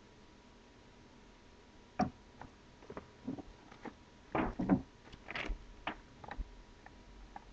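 Handling noise from the unboxing: a run of small clicks, taps and knocks as hands move a cable and reach into the cardboard box, starting about two seconds in and loudest around the middle.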